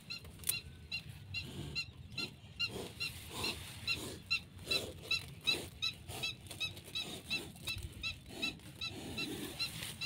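Animals calling: an even run of short high chirps, about four a second, over louder, lower calls that repeat every half second or so.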